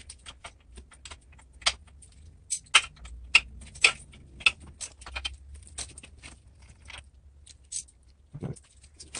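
Irregular clicks, taps and light metallic clatter of hand tools and small parts being handled on a pocket bike, with a few sharper knocks about two to four seconds in and a duller thump near the end.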